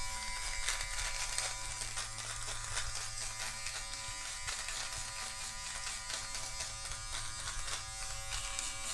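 Electric beard trimmer running with a steady buzz as it is drawn up the neck, its bare blades crackling as they cut through the stubble.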